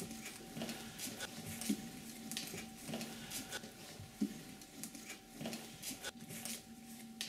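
Scattered light rustles and taps of objects being handled, irregular and short, over a faint steady hum.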